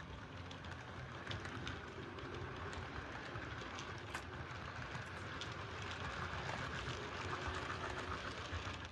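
HO-scale Rivarossi 4-6-4 Hudson steam locomotive model pulling passenger cars along the track, with a faint running noise and light, irregular clicking, slowly getting louder. The clicking is typical of these engines' eccentric, which the owner cannot stop from clicking.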